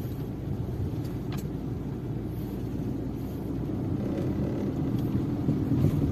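Car driving slowly on a wet dirt road, heard from inside the cabin: a steady low engine and tyre rumble that grows a little louder in the second half.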